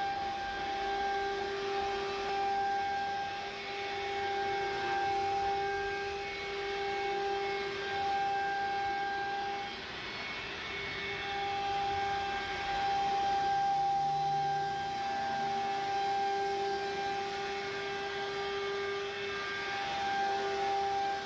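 CNC router spindle whining at a steady pitch as its bit routs grooves into a door panel, with a faint cutting hiss underneath.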